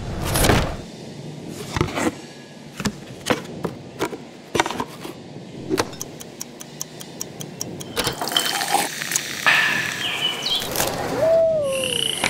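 Cardboard folding sound effects: a string of sharp snaps and clicks as the carton creases into shape, with a quick run of ticks about six seconds in. Busier rustling follows, with a few short whistling glides, one falling, near the end.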